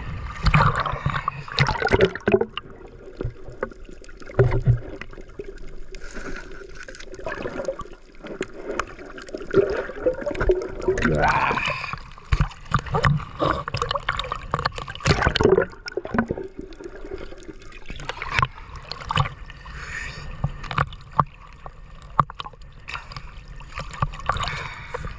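Shallow seawater splashing and sloshing in irregular bursts as a gill net is worked by hand.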